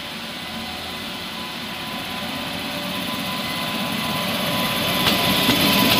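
WAP-7 electric locomotive approaching and passing at speed with its train: a steady whine and the rush of wheels on rails grow steadily louder. Two sharp clicks come near the end.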